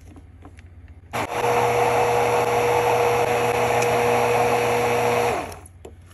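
KitchenAid immersion blender running in a mug of cream, frothing it into foam. The motor switches on about a second in, runs at a steady pitch for about four seconds, then winds down and stops.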